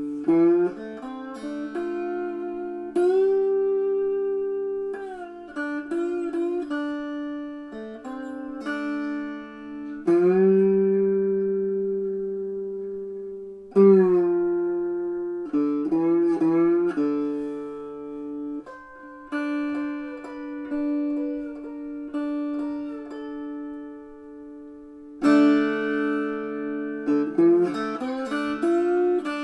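Three-string cigar box guitar tuned D-A-D, played through an amp with its piezo and magnetic humbucker pickups blended on the selector switch: plucked, ringing notes over open-string drones, some notes sliding in pitch.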